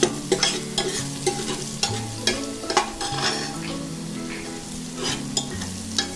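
Curry leaves, cumin, garlic and coconut sizzling in hot ghee in a pressure cooker, with a spatula stirring and scraping against the pot in short repeated strokes.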